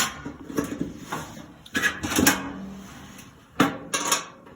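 Irregular clicks and knocks of hands handling a clothes dryer's drum roller parts, fitting a hex screw in place.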